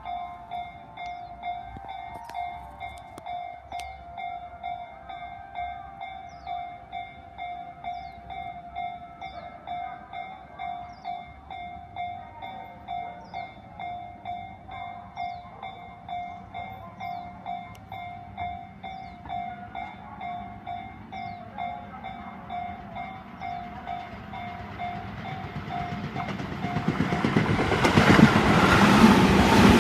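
Level-crossing warning bell ringing in a rapid, even repeat. About three-quarters of the way through, a Tobu 20050-series electric train approaches and rushes past at speed; its noise swells loud and drowns out the bell near the end.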